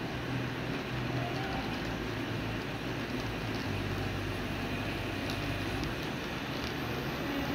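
HO-scale model diesel locomotive running along the layout track, its electric motor humming and its wheels and the wagons' wheels rolling on the rails as it approaches and passes, with a few faint clicks.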